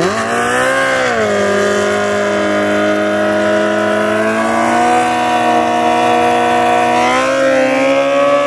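Sport motorcycle engines held at high, nearly steady revs during a burnout, rear tyres spinning on the start line; the pitch dips briefly about a second in, then holds.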